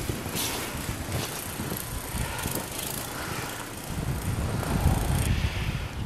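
Wind buffeting the microphone outdoors: a rough, rushing noise that grows heavier and deeper about four seconds in.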